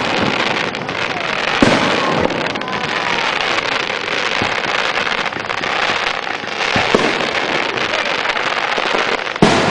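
Fireworks display: continuous crackling from bursting shells, with sharp bangs about a second and a half in, near seven seconds and near the end.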